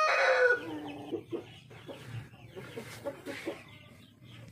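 Chickens: a loud drawn-out call that falls in pitch and ends about a second in, followed by soft, scattered clucking.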